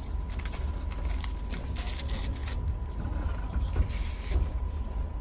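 Low running rumble of a moving passenger train coach with creaks and rattles, and the crinkle of a paper bread-stick packet being torn open, loudest about two seconds in.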